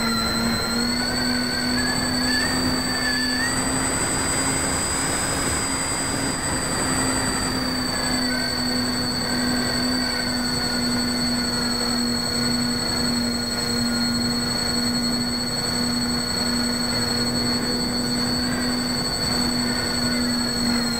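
Twin electric motors and propellers of a Multiplex EasyStar RC plane whining steadily in flight, picked up by the onboard keychain camera with wind rush. The pitch rises slightly about a second in and eases back about eight seconds in.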